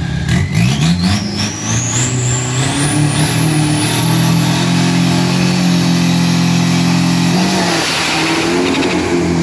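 Turbo-diesel drag pickup held at high revs on the start line, its engine note steady while the turbocharger's whistle climbs steadily in pitch as boost builds. About seven seconds in, the steady note breaks up as the truck launches.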